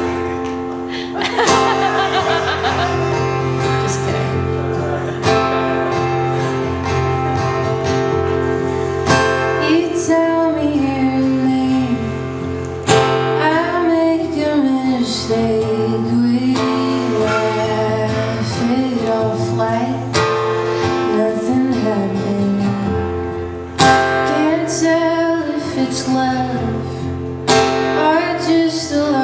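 A female singer performing with acoustic guitar. Strummed guitar opens, and her singing comes in about ten seconds in.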